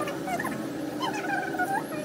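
An animal's repeated high-pitched squeaks and whines, short calls that waver and slide in pitch.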